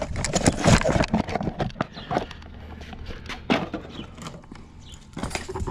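Handling noises: a quick run of clicks, knocks and rustling as the old EGR valve is put back into its cardboard box, thinning to occasional knocks after about two seconds.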